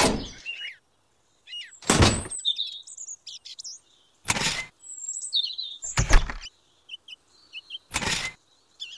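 Small birds chirping, with five short, loud bursts of noise about two seconds apart that are louder than the birds.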